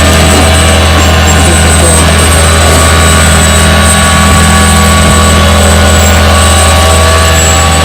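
Tow truck's engine running steadily with a loud low drone while the car is loaded onto it.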